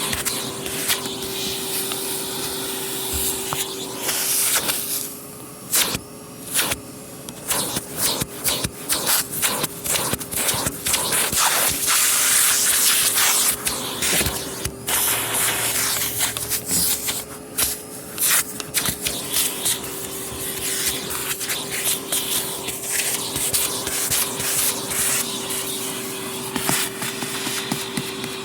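Vacuum cleaner running with a steady motor whine and a rushing hiss of suction, with frequent sharp clicks and rattles as it is worked over the floor. It gets louder for a few seconds midway.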